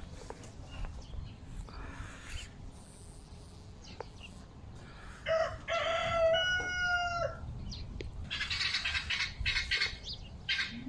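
A rooster crowing once, a single long call of about two seconds, with a low rumble underneath; a couple of seconds of harsher, noisier sound follow.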